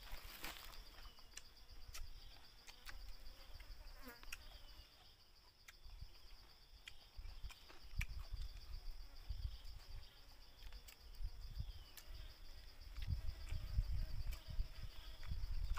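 Insects trilling steadily in one high, even band, with scattered small clicks and taps. Low rumbling bumps on the microphone swell up near the end.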